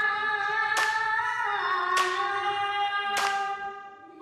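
Background music: a sustained, slowly gliding melody over a sharp percussive hit about every 1.2 seconds. It dips briefly just before the end.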